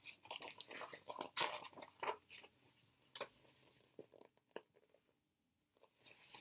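Stiff pages of a picture book rustling and crackling as a page is turned. The crackles come in a quick run over the first couple of seconds, then thin out to a few faint taps.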